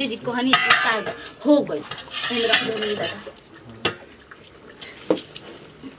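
Steel cookware clattering: a steel plate lid taken off a steel cooking pot and a ladle clinking against the pot while stirring, with two sharp metallic clinks near the end. A woman's voice is heard over the first half.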